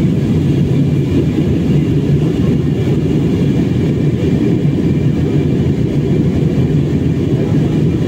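Steady, low-pitched cabin noise of a jet airliner in flight: engine and airflow noise heard from inside the cabin.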